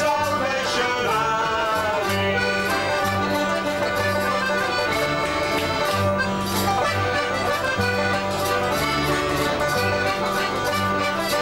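Folk band playing a tune, led by a button accordion with acoustic guitar and banjo, over a steady bass line.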